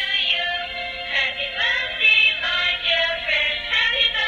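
Dancing cactus plush toy playing one of its built-in songs through its small speaker, a synthetic voice singing over a jingly tune. The sound is thin, with no bass and no top end.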